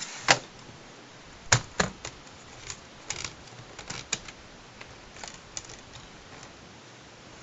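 Irregular sharp clicks and taps of a Blu-ray box set's fold-out case and discs being handled, strongest in the first two seconds and dying away after about six seconds.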